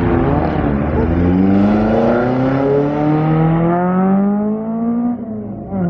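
Sports car engine accelerating hard in one gear, its pitch climbing steadily for about five seconds, then dropping off near the end.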